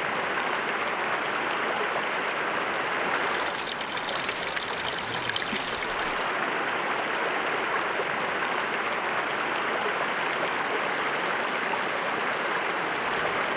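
River water rushing steadily over rocks and boulders, an even shallow-water rush.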